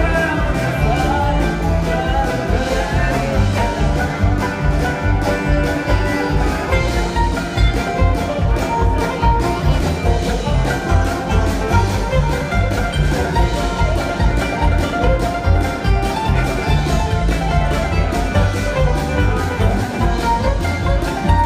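Live band playing an instrumental stretch of a song, with drums and bass keeping a steady beat under guitars. The sound comes through a phone's microphone from the audience.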